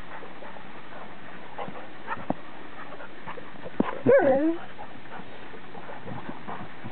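English setter and standard poodle play-fighting. About four seconds in, one dog gives a short whine of about half a second that wavers up and down in pitch. Around it are a few faint scuffling clicks.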